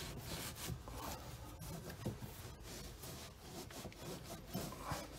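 Oily cloth rag rubbed and wiped over a steel hydraulic hose fitting, faint irregular rubbing strokes.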